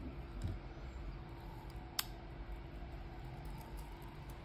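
Quiet handling of a steel-bracelet wristwatch, with a soft thump about half a second in and one sharp small click about two seconds in, over a faint steady hum.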